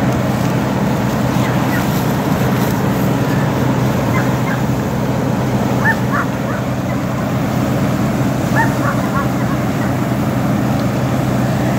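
A large engine running steadily with a low hum, and a few short high yelps or squeaks over it around four, six and nine seconds in.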